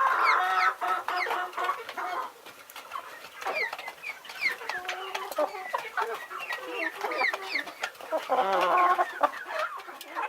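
A flock of domestic chickens clucking, with many short, high, falling peeps throughout and longer drawn-out calls at the start and again near the end.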